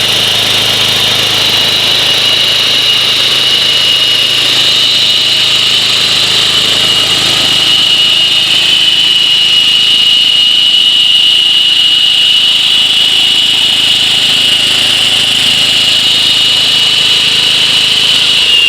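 Honda engine of an MK Diamond walk-behind concrete saw running at high speed, a loud, steady high-pitched whine; right at the end the pitch starts to drop as it slows.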